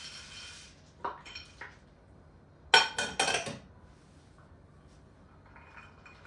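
Dishes and cutlery clinking and clattering, with a ringing metallic or glassy sound, in three short clusters; the loudest comes about three seconds in.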